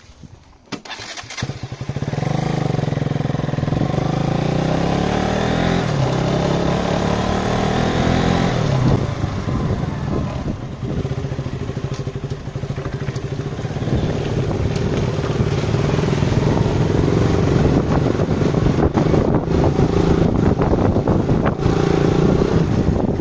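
Sport motorcycle engine comes in loud about two seconds in and runs close by, its pitch rising and falling with the throttle.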